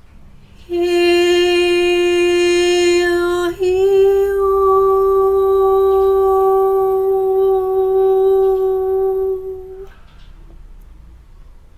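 A voice singing two long held notes, the second a little higher and longer than the first.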